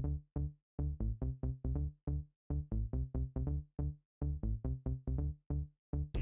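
Background music: short, pitched notes in a quick steady rhythm, about four a second, broken by brief pauses between phrases.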